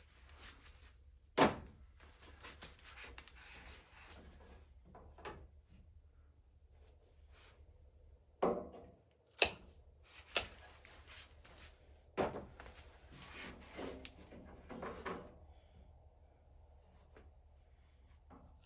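Scattered knocks, clunks and scraping of parts and tools being handled while a fuel tank is worked into place under a truck; the sharpest knock comes about nine seconds in.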